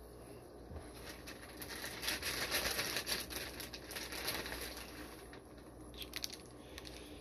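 Plastic shipping bags holding fish crinkling and rustling as they are handled, loudest in the middle and fading out, followed by a few small clicks near the end.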